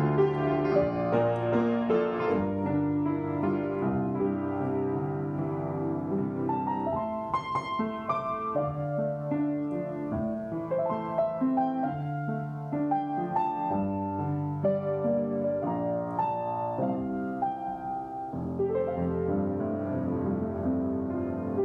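Yamaha upright piano played solo: a slow, gentle ballad melody over sustained chords.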